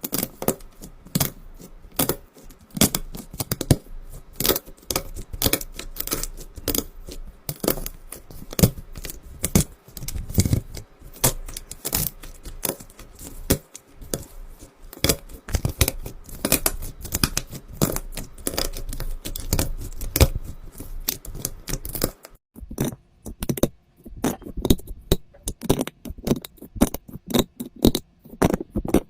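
Slime being squished and stretched by hand, giving a dense run of quick wet pops and crackles that thins out briefly about three-quarters of the way through.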